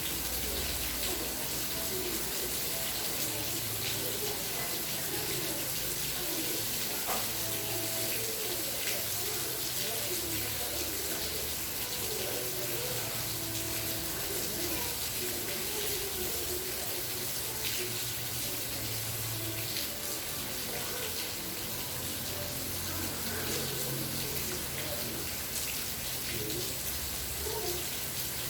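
Steady rainfall: an even, continuous hiss of rain.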